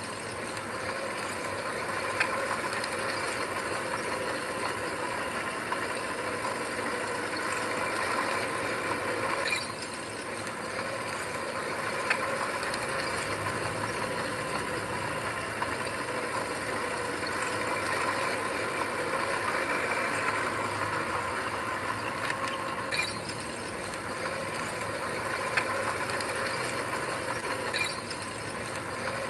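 Heavy earthmoving machinery running steadily, a diesel engine drone with the occasional sharp metallic click or clank.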